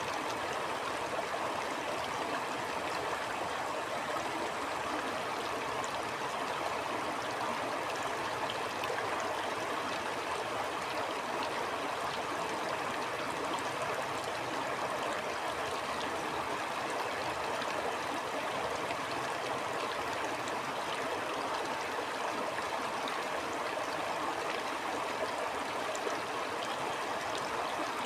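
A stream of flowing water running steadily, an even rushing sound that does not change, with faint small splashes now and then.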